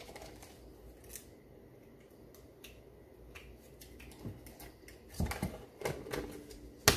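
Light plastic handling: a barbecue sauce packet being squeezed over a plastic soda cup, with scattered small clicks and crinkles, a few soft knocks about five seconds in, and one sharp click near the end as the cup and lid are handled.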